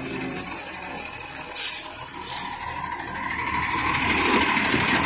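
Garbage truck's diesel engine running as the truck drives up over the level crossing and past, growing louder in the second half, with a short hiss about one and a half seconds in.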